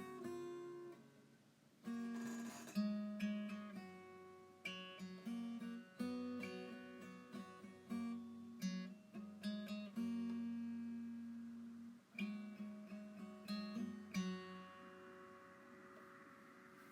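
Acoustic guitar music: plucked and strummed notes, each ringing and decaying. The last notes ring out about two seconds before the end, leaving a faint hiss.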